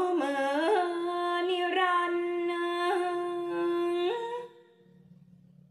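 A young woman's voice chanting Thai sepha verse, drawing the final syllable out in a long ornamented line of held notes that step between pitches, partly hummed with lips nearly closed. It rises a step and stops about four and a half seconds in.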